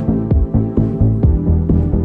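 Background electronic music with a steady beat of about two beats a second over sustained low tones.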